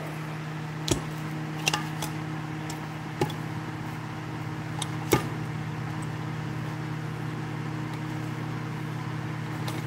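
Handling noises at a workbench as a small metal vise is positioned and an LED bulb's base is fitted into its jaws: a few sharp clicks and knocks, the loudest about five seconds in. A steady low hum runs underneath.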